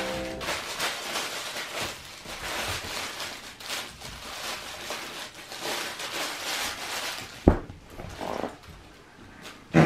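Shiba Inu mouthing and tossing a plush toy: irregular rustling and scuffling of the toy and paws on the floor, with one sharp thump about seven and a half seconds in and a smaller knock near the end.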